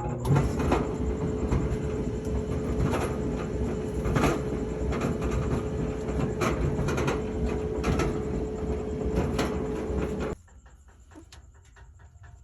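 Whirlpool clothes dryer running with a loud rattling, thumping drum: irregular knocks roughly every half second to second over a steady motor hum, typical of bad drum support rollers and a damaged drum. It cuts off suddenly about ten seconds in.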